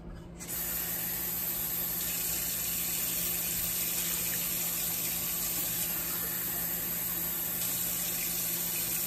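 Water running steadily, starting abruptly about half a second in, as water is added to the steel inner pot of an Instant Pot pressure cooker.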